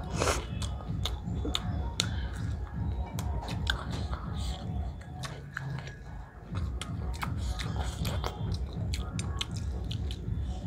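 Close-up chewing and biting of fried cabbage pakoras eaten by hand, with many small sharp mouth clicks.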